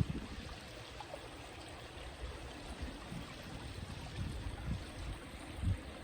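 A river flowing steadily, with irregular low gusts of wind buffeting the microphone, strongest near the end.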